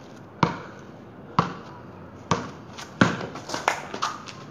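A basketball bouncing on concrete as it is dribbled, a sharp knock about once a second, followed by a quicker run of lighter knocks and shoe scuffs in the last second or so.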